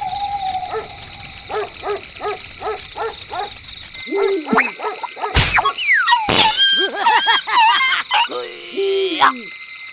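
A series of short pitched animal-like calls, about two a second, followed by assorted calls that slide up and down in pitch and a sharp click about halfway through.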